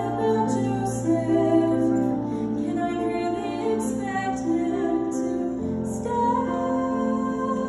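A woman singing into a microphone over held keyboard chords, the melody moving in long sustained notes.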